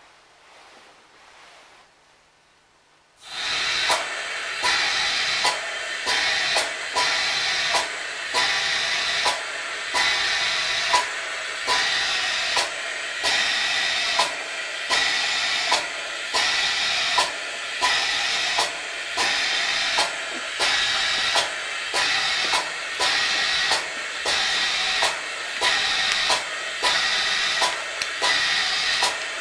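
Anesthesia ventilator switched on about three seconds in: a loud steady hiss of gas flow with a regular click roughly once a second as it cycles.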